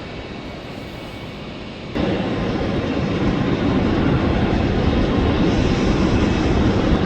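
Airliner engine noise: a steady rushing rumble with a faint whine in it. It jumps suddenly louder about two seconds in and then holds steady.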